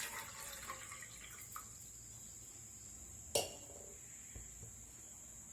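Faint drips and settling of water just poured into a cooking pot, then one sharp knock with a brief ring a little over three seconds in.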